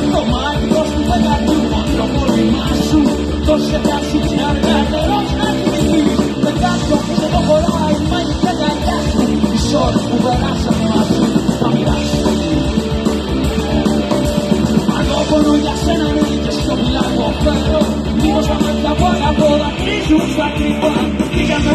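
Live rock band playing amplified through a PA, with electric guitar and bass guitar.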